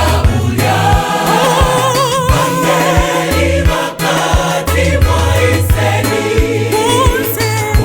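Gospel music: a choir singing with a lead voice over a steady bass line and a regular beat.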